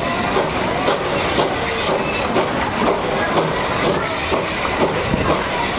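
Steam-hauled train behind a South African Railways Class 15F locomotive, heard from one of its coaches while moving: wheels clicking over the rails under a steady hiss, with now and then a short squeal.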